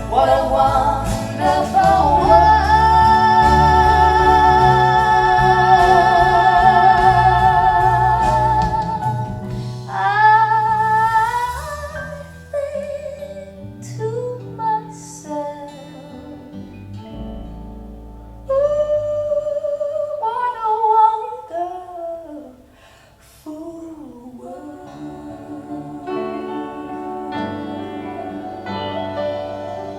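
Folk song with singing playing through Klipsch The Nines active speakers. About two seconds in, a voice holds one long wavering note for several seconds, then sings shorter phrases over the accompaniment.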